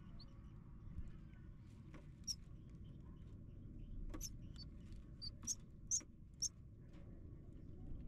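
Nestlings in the nest giving short, high, thin begging peeps, about half a dozen spaced irregularly and mostly in the second half, over a faint low background rumble.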